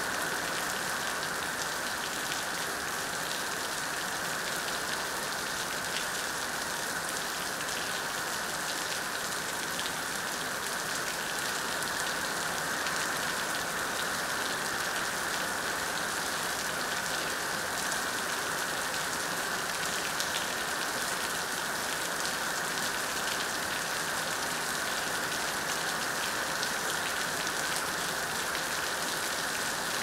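Heavy rain falling steadily on hard surfaces: an even hiss packed with countless fine drop ticks, without let-up.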